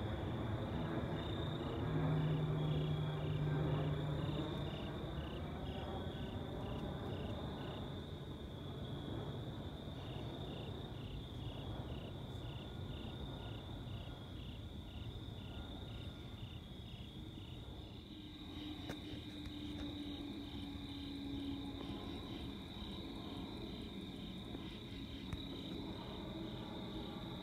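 Night insects chirping in a steady, high, even pulse of about two to three chirps a second, over a low rumble that is loudest in the first few seconds and then eases off.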